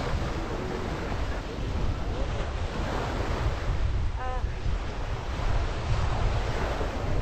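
Small waves washing up onto a sandy beach, swelling twice, with wind buffeting the microphone.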